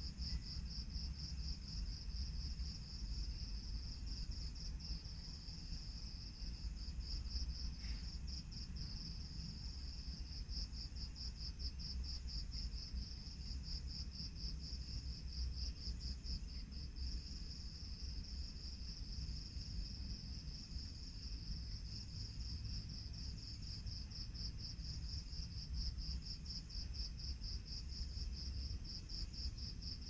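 Night insects trilling steadily: a high-pitched chirping made of rapid, evenly spaced pulses, over a constant low rumble.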